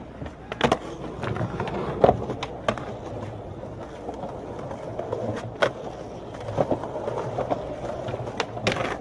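Skateboard wheels rolling on smooth concrete, with about half a dozen sharp clacks of the board hitting the ground as tricks are popped and landed; the loudest comes about two seconds in.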